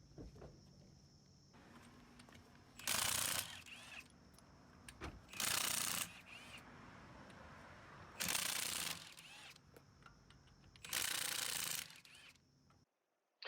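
Four short bursts from a power tool, evenly spaced about two and a half seconds apart, over a faint steady hum; most likely an impact wrench spinning the lug nuts off the wheel.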